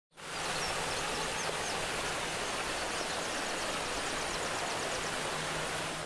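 Water rushing over rock cascades in a hot-spring stream, a steady rush that fades in at the start, with faint short high chirps above it.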